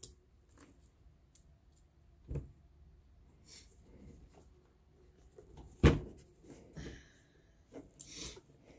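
Scattered knocks, clinks and scrapes from a Kobalt chainsaw and its chain being handled and laid on its side, with one sharp knock about six seconds in the loudest.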